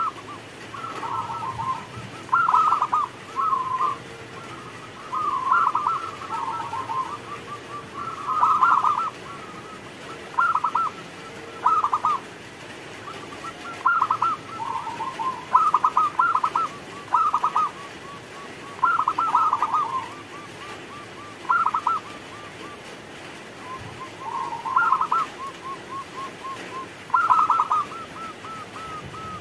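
Zebra dove (perkutut) singing its cooing song over and over: phrases of quick, stuttering coos, one about every two seconds.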